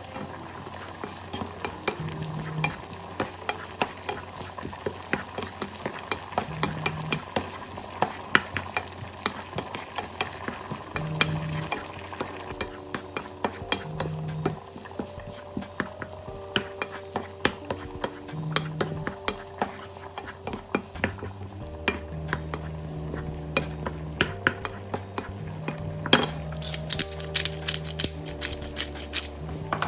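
Food sizzling in a frying pan while being stirred, with a utensil clicking and scraping against the pan many times.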